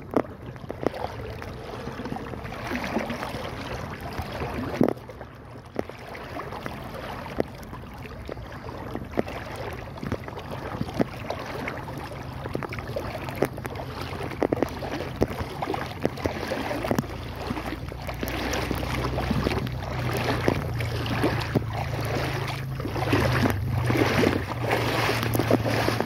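Legs wading through a shallow river, the water sloshing and splashing with each stride, the splashes getting denser and louder toward the end as the bank is reached. A low steady rumble builds underneath from about halfway through.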